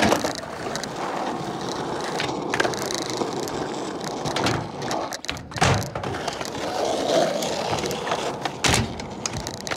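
Skateboard wheels rolling over concrete, broken by about half a dozen sharp clacks from the board, the loudest at about five and a half seconds in and near the end.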